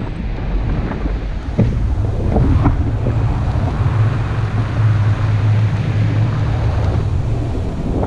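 Wind rushing and buffeting over an action camera's microphone from the airflow of a tandem paraglider in flight, a dense low rumble with a steadier low drone through the middle.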